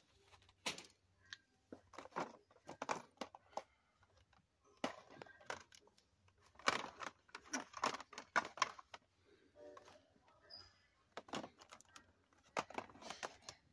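Hard plastic blister packs of die-cast toy cars clicking and crackling as they are handled and taken off pegboard hooks, in irregular clusters of short, sharp clicks.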